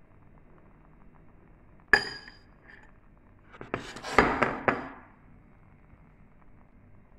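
A metal spoon clinking against a glass mixing bowl: one sharp, ringing clink about two seconds in, then a quick run of clinks and scrapes a second and a half later as pancake batter is scraped out of the bowl into the frying pan.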